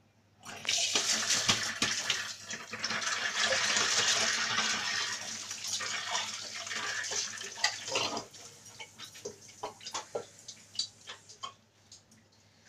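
Running water, like a kitchen tap, with small knocks and clicks of handling. The water stops about eight seconds in, leaving a few scattered clicks.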